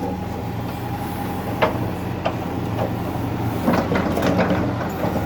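Caterpillar 428F backhoe loader's diesel engine running steadily under work, with a handful of sharp metallic clanks from the backhoe working.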